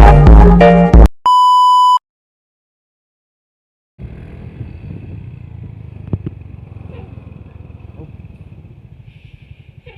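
Music cuts off about a second in, followed by a short, steady electronic beep lasting under a second and then two seconds of dead silence. After that comes roadside traffic with a steady low engine rumble and a few light clicks.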